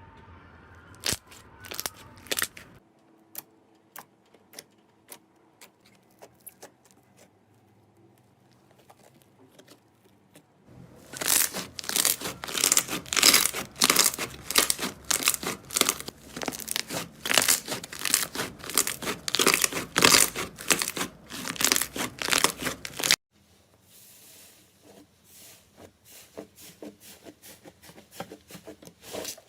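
Slime being squeezed and worked by hand, giving sharp crackles and pops. A few scattered clicks come first, then about twelve seconds of dense, loud crackling that cuts off suddenly, followed by fainter crackling.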